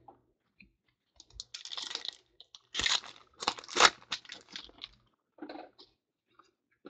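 Foil wrapper of a 2014 Certified football card pack being torn open and crinkled by hand, in a run of rustling, crackling bursts lasting a few seconds, then a few fainter rustles as the cards are handled.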